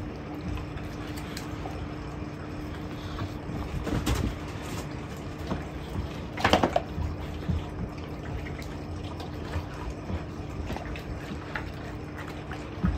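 Mastiffs eating raw chicken from a steel bowl: wet chewing, licking and small crunching clicks, with a brief louder sound about six and a half seconds in. A steady low hum runs underneath.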